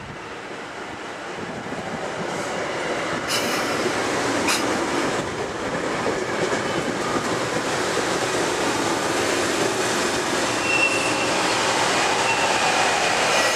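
Metro-North electric multiple-unit commuter train pulling in alongside the platform, its wheels rolling on the rails and getting steadily louder as the cars come past. There are two sharp clicks about three and four and a half seconds in, and faint high wheel or brake squeal near the end.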